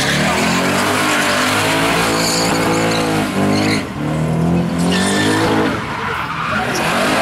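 Holden VH Commodore V8 held at high revs through a burnout, the revs rising and falling with brief dips about four and six seconds in, over the hiss of the rear tyres spinning on the track.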